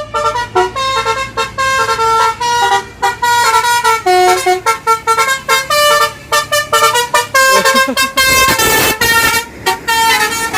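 Bus telolet horn, a multi-trumpet musical horn, playing a quick tune of short changing notes, with a short rush of noise about eight seconds in.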